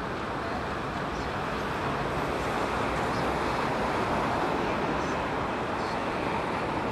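Steady outdoor background noise: an even rushing hiss with no distinct events.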